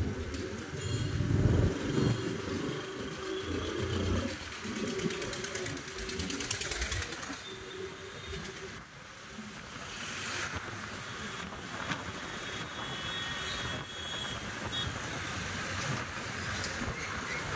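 Town street traffic heard from a moving two-wheeler: a steady mix of engine and road noise, with passing motorcycles, and a rough low rumble that is stronger in the first few seconds.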